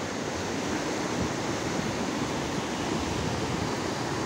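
Steady rush of a fast mountain stream tumbling over rocks and boulders.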